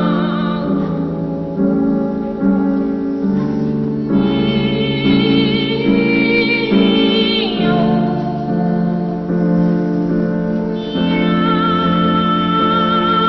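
Children's choir singing wordless cat-like 'miau' notes in imitation of cats' meows, over a sustained instrumental accompaniment. The high voices hold long notes with vibrato, and one note slides down in pitch about halfway through.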